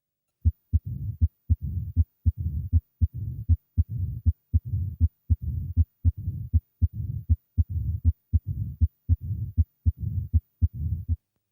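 Heart sounds of mitral stenosis heard on auscultation: a regular heartbeat at a little over one beat a second, each beat sharp heart sounds followed by a low rumbling diastolic murmur. The beat starts about half a second in and stops shortly before the end.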